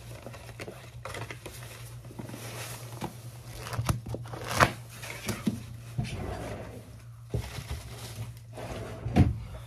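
Close-miked rustling, crinkling and scratching as hands handle objects right at the microphone, with sharp taps about halfway through and near the end. A low steady hum runs underneath.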